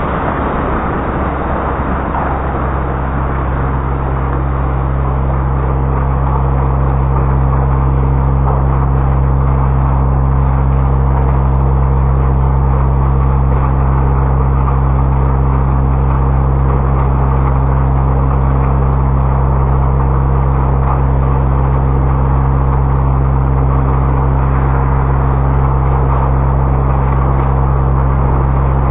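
Car wash machinery running: a steady low hum under a constant rushing noise, growing a little louder a few seconds in.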